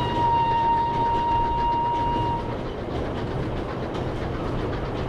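Train running along the track with a rumbling clatter of wheels, and a steady train whistle held until about two and a half seconds in.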